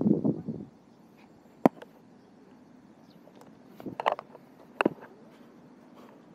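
Footsteps and handling noise from someone walking a pond bank with a fishing rod. A brief rustle at the start is followed by one sharp click about one and a half seconds in, then a few knocks around four to five seconds in.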